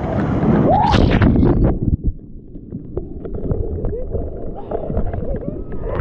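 Ocean wave breaking over a person in the surf: a loud rush and splash of water, with a short rising shriek about a second in. After about two seconds it drops to a muffled churning of surf water.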